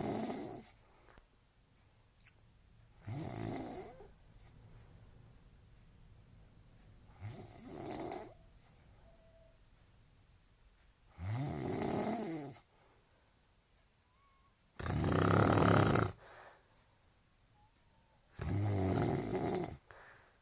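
A person snoring: about six snores, one every three to four seconds, each lasting a second or so, with quiet gaps between.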